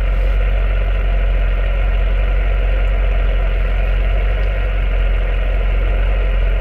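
Vehicle engine idling steadily inside the cab, with an even hiss of static from an Alinco DX-70 ham radio receiving on the 10-metre band, where the distant station has faded into the noise.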